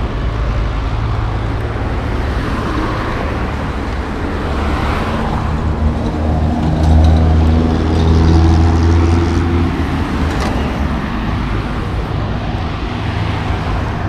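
Street traffic noise with a motor vehicle's engine humming close by, swelling to its loudest about seven to nine seconds in and then fading back into the general traffic hum.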